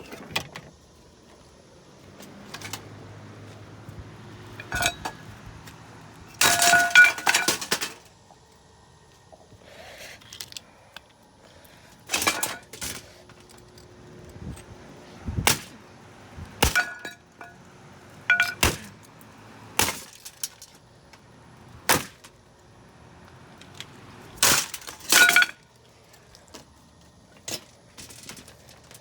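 Hammer blows smashing a Lasko box fan: about a dozen separate breaking impacts, some with a brief ringing, and a rapid flurry of blows about six to eight seconds in.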